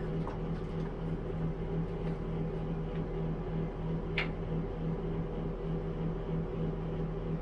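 Steady machine hum with fixed low tones, and a single faint click about four seconds in.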